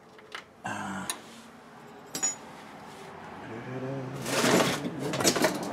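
Small steel drum-brake parts clinking and rattling as they are handled, with sharp metallic clicks and a louder clatter near the end.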